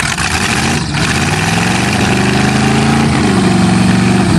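Old Chevrolet sedan's engine being cranked hard by the starter on a cold start, turning over steadily for several seconds without catching. It cranks tight because a seized alternator is dragging on the drive belt, which is scorching.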